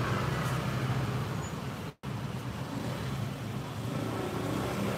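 Steady low hum of road traffic and vehicle engines. The sound cuts out completely for an instant about two seconds in.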